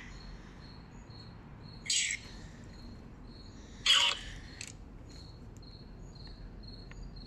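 Crickets chirping steadily in a high, even pulse, about three chirps a second. Two short, loud hissy bursts cut in about two and four seconds in.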